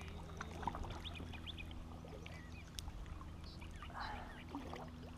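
Quiet open-water sound around a kayak: light water trickling and dripping with faint bird chirps, over a steady low hum. A brief rush of water sounds about four seconds in.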